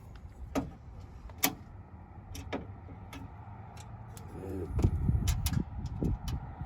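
Scattered sharp clicks and light knocks of tools and parts being handled at a truck door during a door-handle replacement, with a low rumble growing from about five seconds in.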